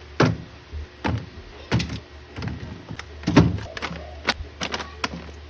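Irregular knocks and clunks, about six of them, as food and containers are set into and moved around a small fridge during restocking, over a steady low hum.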